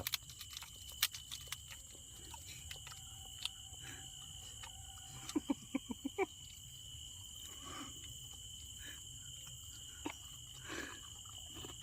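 Steady, high-pitched chirring of night insects, with scattered faint clicks and a quick run of short sounds about five to six seconds in.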